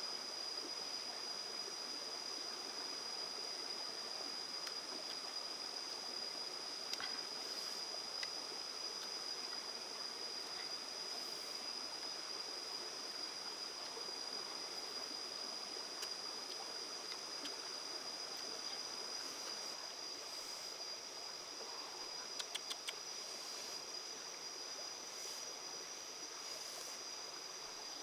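Stream water running steadily over rocks, with a steady high-pitched whine lying over it and a quick run of faint clicks near the end.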